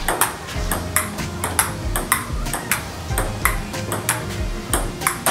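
Table-tennis rally: a ping-pong ball clicking back and forth between two paddles and a Cornilleau 510 table, about two to three sharp hits a second.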